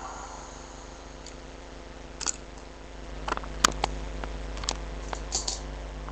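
Scattered light clicks and knocks, starting about two seconds in and the sharpest a little past halfway, over a steady low electrical hum.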